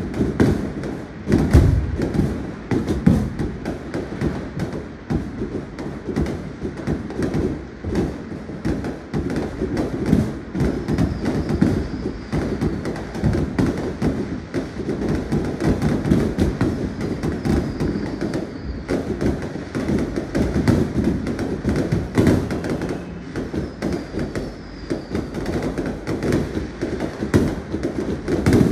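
Many aerial fireworks going off at once: a dense, unbroken run of bangs, thuds and crackling, with a few faint falling whistles.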